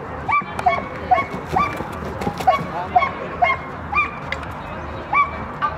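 A black agility dog barking repeatedly while running the course, about ten short, high barks in quick succession with brief gaps.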